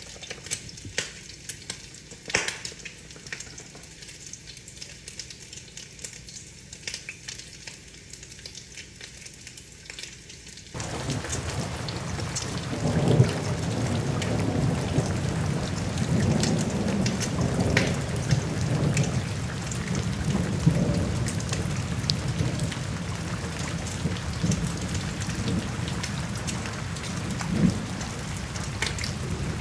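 Rain pattering, with sharp drip ticks. About eleven seconds in, the sound switches abruptly to louder rain under a low rolling rumble of thunder.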